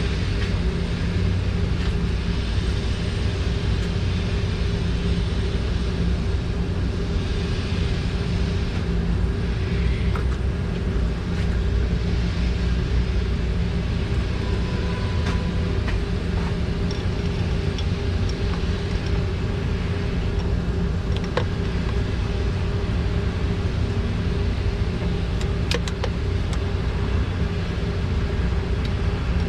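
Steady low mechanical drone with a constant hum from a running machine, unchanging throughout, with a few light clicks about 10, 21 and 26 seconds in.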